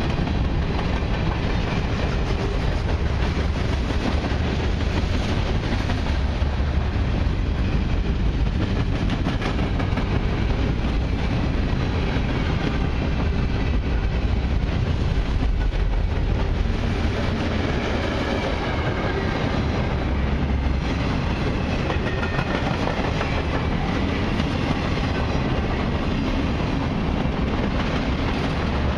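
Freight cars of a long CN train, covered hoppers and then flatcars, rolling past at close range: steady, continuous wheel-on-rail noise, heaviest in the low end.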